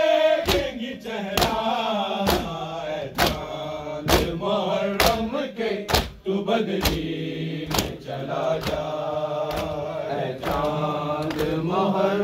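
A group of men chanting a Muharram noha in unison, mourning lamentation, with a hard chest-beating strike of matam keeping time about once a second.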